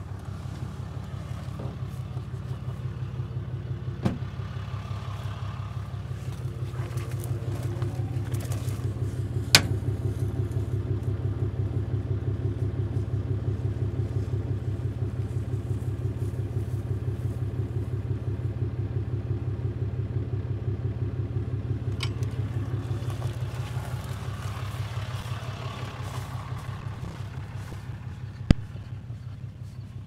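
Pickup truck engine idling with a steady low throb. A few sharp knocks stand out over it, the loudest about ten seconds in.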